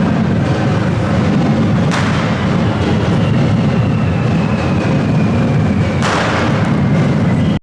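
Correfoc fireworks and firecrackers going off amid a dense, continuous din, with sharp bangs about two seconds in and near the end and a falling whistle between them.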